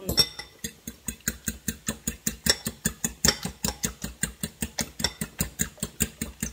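Eggs being beaten in a bowl: a utensil knocks against the bowl in a quick, steady rhythm of about six strokes a second.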